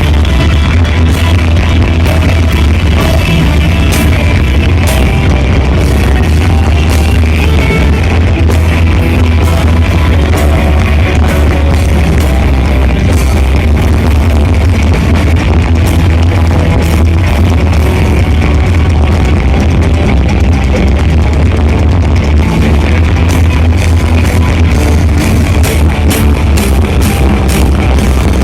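Loud rock music from a band, with guitar over a heavy, steady bass and a continuous run of sharp drum or cymbal strikes.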